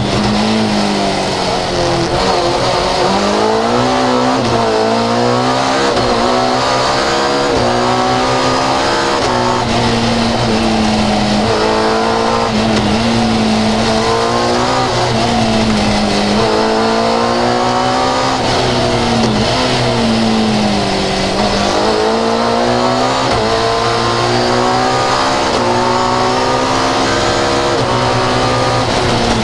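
Fiat 131 rally car's engine at full throttle, heard from inside the cabin, its pitch climbing with the revs and falling back at each gear change, over and over, as the car accelerates and brakes along the stage.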